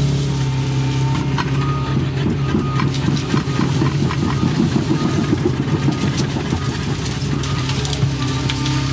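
Doosan excavator's diesel engine running steadily, with a faint whine and a few scattered clicks and creaks over it.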